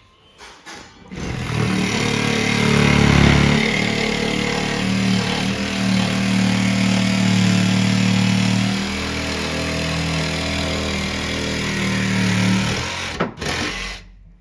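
Electric power saw cutting the toilet cutout in a plywood subfloor panel. It runs loud and steady, shifts pitch a couple of times as the load changes, and stops sharply near the end.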